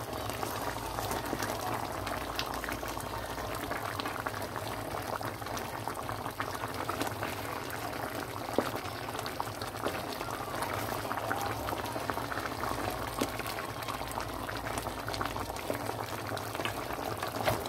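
Coconut curry sauce bubbling steadily in a pan on the stove, a constant patter of many small bubble pops.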